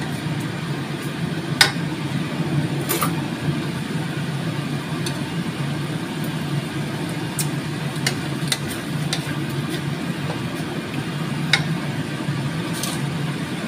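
Steady low mechanical hum with a handful of short, sharp clicks scattered through it: a spatula knocking against a steel wok as a thick simmering sauce is stirred.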